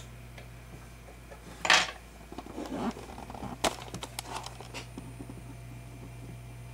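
Small metal clicks and clinks from an Ace II tubular lock and its pick and tension wrench being handled. There is a louder scrape about two seconds in and a sharp click near the middle, over a steady low electrical hum.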